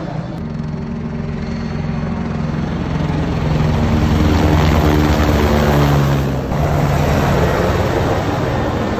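Low-flying spray helicopter's rotor and engine beating steadily. It grows louder as the helicopter comes near, is loudest around the middle, then eases slightly as it passes.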